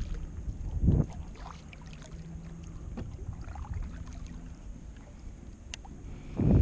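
Kayak being paddled across open bay water: water sounds from a paddle stroke about a second in, with a low wind rumble. Near the end comes a single sharp click, then a louder rush as a cast is made with a baitcasting rod.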